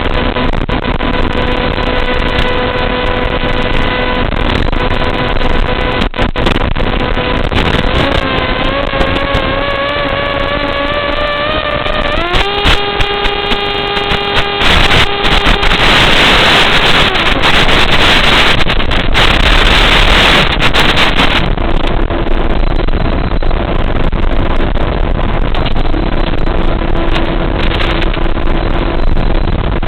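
Radio-controlled model airplane's motor running: a steady tone at first, then the pitch climbs as the throttle opens and jumps higher about twelve seconds in. A loud rushing noise covers it for several seconds, and it then settles to a steadier, lower tone.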